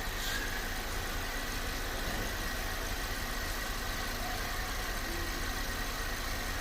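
VW Polo 1.2 TSI four-cylinder petrol engine idling steadily, with a steady high tone in its running sound. The mechanic puts the noise down to a stretched timing chain, alongside a misfire.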